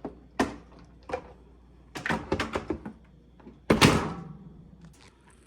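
Dishwasher upper rack being pulled out of its rails: a few sharp clicks, then a run of rattling knocks, then a heavier clunk with a short ring about three and a half seconds in.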